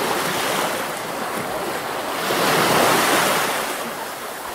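Ocean surf: waves breaking and washing in as a steady rush of water noise that swells about halfway through.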